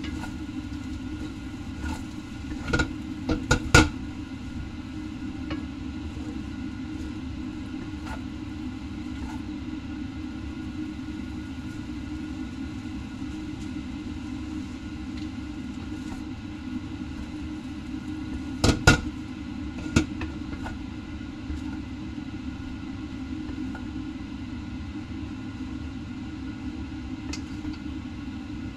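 Wooden cooking chopsticks and a spatula knocking a few times against a stainless steel wok as noodles are tossed, in two short clusters, over a steady low hum.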